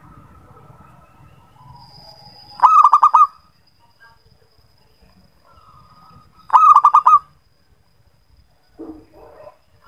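Zebra dove cooing twice, about four seconds apart: each call is a loud, quick, stuttering run of about five notes. Faint birdsong and a thin steady high tone sound behind it.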